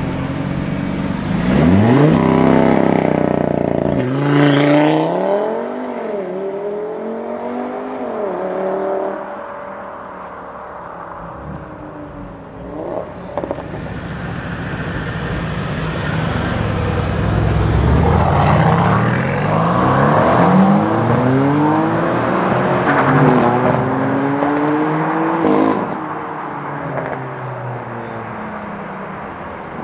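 Sports car engines accelerating hard away, revving up through the gears with a drop in pitch at each upshift: one car pulls away in the first few seconds and another from about halfway through.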